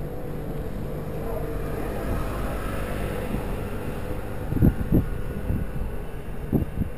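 Steady wind and road rumble on a bicycle-mounted camera's microphone while riding, with a few sharp thumps from bumps in the path, two around the middle and two near the end.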